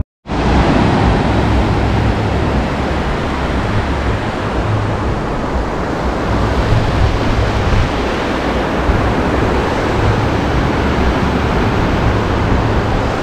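Sea surf breaking and washing up a flat sandy beach, a steady rush, with wind rumbling on the microphone.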